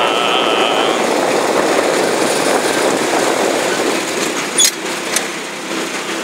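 A UTV running as it drives across a rough, muddy field, with a high steady tone in the first second. Two sharp knocks come about four and a half and five seconds in.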